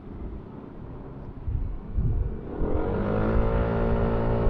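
Yamaha NMAX scooter engine, tuned with a Pitsbike racing ECU, under hard acceleration. Low road and wind rumble at first, then about two and a half seconds in the engine note climbs quickly, gets louder and holds a steady high pitch as the scooter picks up speed.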